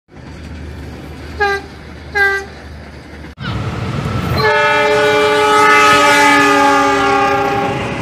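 Train horns: a distant multiple-unit train gives two short toots, then a passing diesel locomotive sounds one long multi-tone chord horn over the rumble of the train on the rails, the loudest part.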